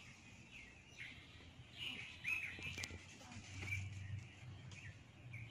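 Small birds chirping, short high calls repeated throughout, over a faint low rumble.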